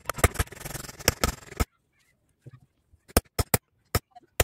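Hammer blows on a car engine's piston and connecting rod: a quick run of sharp metal knocks for about a second and a half, a pause, then about five more separate knocks.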